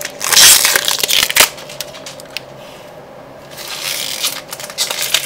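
Foil trading-card booster pack wrapper being torn open and crinkled by hand, loudest in the first second and a half, then softer scattered crinkling.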